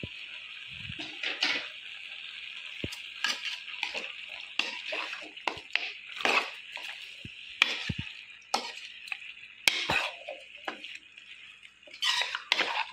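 A steel spoon stirring chicken pieces with onions and ground spices in a hot pan: repeated scrapes and clinks of the spoon against the pan over a steady sizzle.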